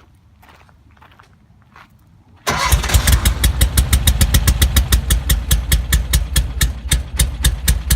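Porsche 356 Speedster's air-cooled flat-four engine being turned over on the starter, starting abruptly about two and a half seconds in with a fast, even beat of compression pulses. The engine does not catch, in a car that fires but won't run, which the owners take for no fuel getting through.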